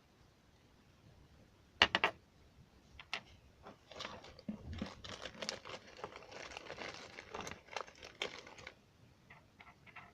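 Handling of small hard parts: three sharp clicks in quick succession about two seconds in, then several seconds of dense clicking mixed with crinkly rustling, ending a little before the close.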